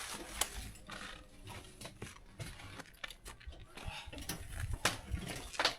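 Bike touring gear being handled and packed: scattered clicks, knocks and rustling of bags, with a low rumble underneath.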